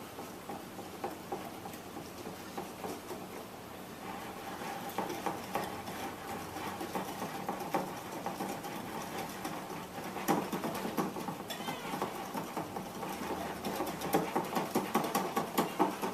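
A spoon stirring cornbread batter in a mixing bowl, with irregular scraping and clicking against the bowl that turns into quicker, regular strokes near the end.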